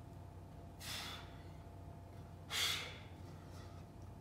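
A man breathing hard during push-ups: two short, forceful breaths through the mouth, about a second and a half apart, one with each repetition.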